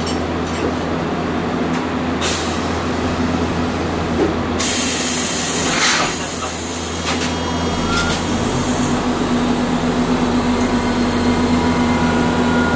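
Inside a Hiroshima Electric Railway 800-series tram: a steady electrical hum, with hissing bursts of air, the longest from about 4.5 to 9 seconds, typical of the pneumatic brakes and doors. After that the running noise slowly builds as the tram moves off.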